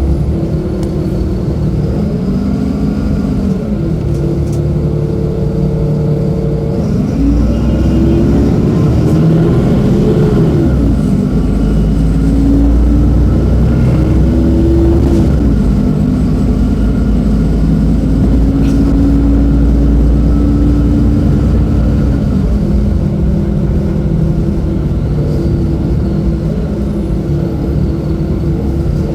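Mercedes-Benz O-500U bus's OM-926LA six-cylinder diesel running under way. Its pitch climbs as it pulls and drops twice at gear changes of the Voith automatic gearbox, holds steadier, then falls away as it eases off near the end.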